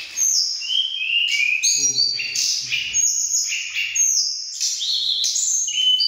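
Caged tledekan gunung songbirds singing against each other in a heated song duel: several birds trading loud whistled phrases of short level and sliding notes, overlapping without a break.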